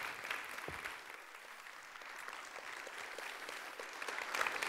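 Audience applauding, a steady clapping of many hands.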